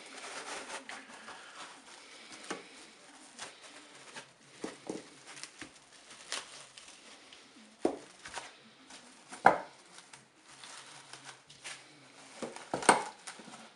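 Plastic cling film being pulled from its roll and stretched over a metal cake mould: crinkling and rustling of the film with scattered small clicks and three sharper knocks.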